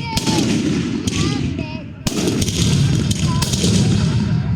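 Many fireworks going off at once: a continuous rumble of booms with sharp cracks over it, a louder bang about two seconds in, and faint wavering whistles.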